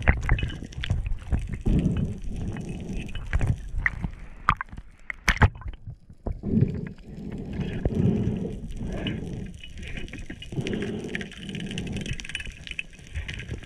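Muffled underwater rush and gurgle of moving water heard through a diving camera's housing, swelling and fading, with a few sharp clicks near the middle.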